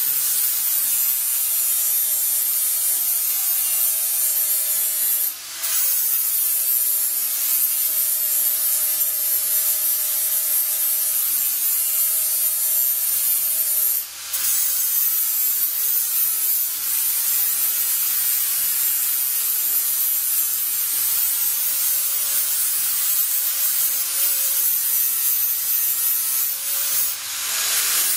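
Angle grinder with a thin cutting disc running steadily as it cuts through sheet steel, a constant high-pitched whine with grinding hiss. The sound dips briefly three times.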